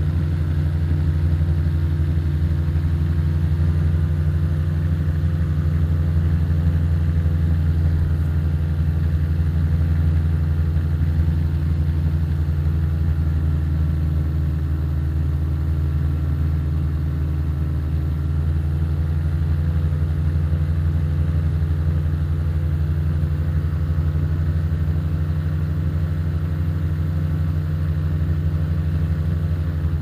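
Ultralight's 65 hp Rotax 582 two-stroke twin and three-blade Warp Drive propeller droning steadily in flight, holding an even pitch throughout.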